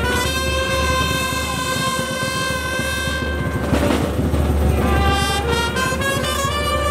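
Brass band of saxophones and trumpets playing long held chords, with drums beating underneath. The held notes break off for about a second and a half in the middle, then come back in.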